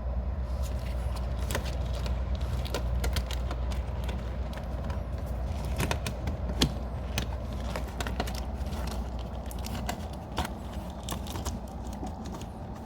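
Handling noise from stuffing loose wiring out of sight: irregular clicks, taps and rustles of wires and plastic, over a steady low hum.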